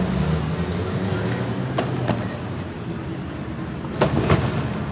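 Street traffic: a vehicle engine running with a steady low rumble, with a few sharp cracks over it, two close together about four seconds in.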